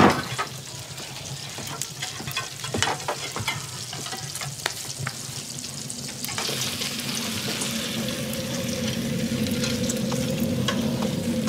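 Burger patties sizzling in a frying pan, with scattered clicks and knocks in the first half. A low steady hum builds in the second half.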